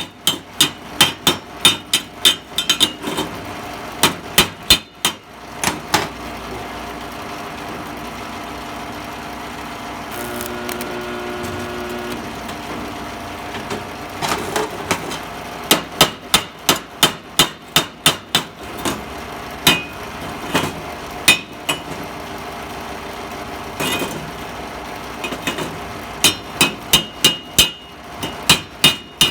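Hammer striking steel in quick runs of sharp, ringing metallic blows, about two to three a second. The blows come in three bursts, with a steady hum in between.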